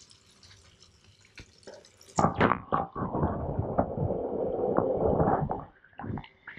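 Water splashing as a camera and hand plunge into a fish tank about two seconds in, then dull, muffled underwater churning with the highs cut off, which dies down near the end.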